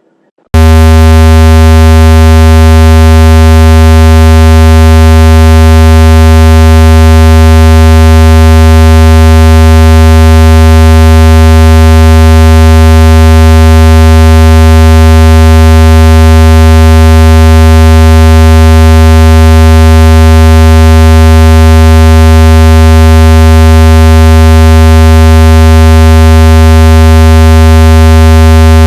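Speaker-cleaning tone: a loud, steady, low electronic tone with many overtones, beginning about half a second in and holding unchanged. It is played through a phone speaker to shake out trapped water and dust.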